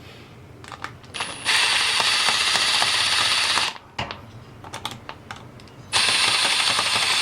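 Cordless drill-driver running in two bursts of about two seconds each, driving the receptacle's mounting screws into the metal electrical box.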